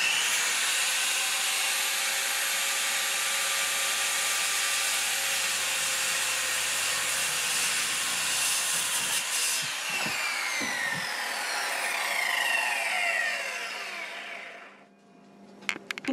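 Electric circular saw cutting into a wall, running at steady speed for about nine seconds. The trigger is then released and the blade winds down with a falling whine, followed by a few light knocks near the end.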